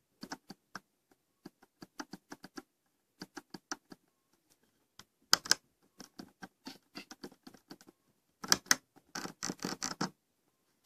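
Logitech G700s mouse clicking in quick irregular series, the scroll wheel and buttons being worked; the owner finds the scroll wheel knocks unpleasantly and the left button has play, though the mouse is new. A few louder clicks come about halfway through and near the end, with a denser clatter at the end.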